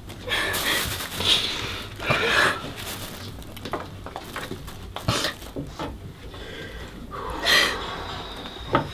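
A person crying: shaky sobbing breaths and sniffles in short surges, the loudest about seven and a half seconds in.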